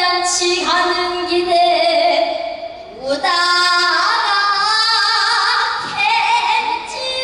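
Female pansori singer's voice in long held, wavering notes, with a short break for breath about three seconds in.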